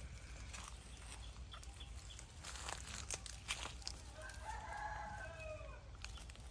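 A rooster crowing once, a single arching call of about a second and a half past the middle. A few sharp clicks come shortly before it.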